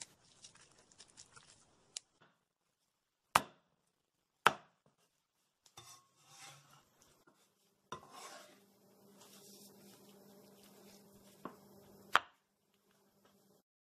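Cleaver chopping cooked chicken on a chopping board: about half a dozen sharp, separate chops spaced a second or more apart. Faint scraping and handling sounds come between the chops.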